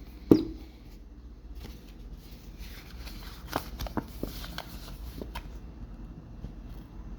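Hands handling watch packaging: one sharp click or knock near the start, then soft rustling with a few light clicks and taps in the middle.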